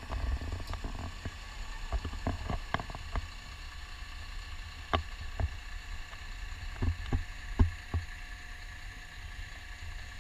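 Steady low rumble of a moving open-top bus and wind on the microphone, with irregular sharp knocks and thumps scattered through it, the loudest about three-quarters of the way in.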